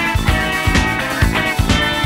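Instrumental band music with a steady drum beat under bass and electric guitar.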